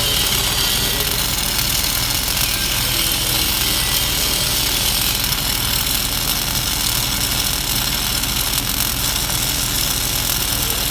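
Lincoln MIG welder's arc crackling steadily as a bead is run along a lap joint.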